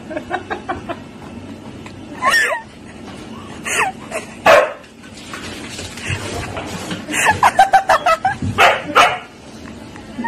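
A husky barking and yipping in short calls, with a quick run of yips about seven seconds in.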